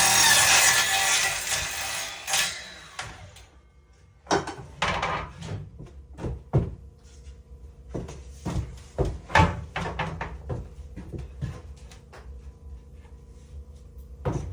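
A power tool runs for about the first two seconds and stops. Then come irregular wooden knocks and clatters, like boards and tools being handled and set down, during wall-building work.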